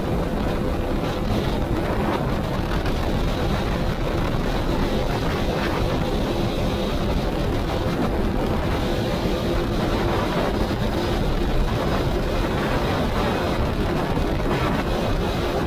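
CFMoto CForce 800 ATV's V-twin engine running steadily while riding, with wind noise on the microphone.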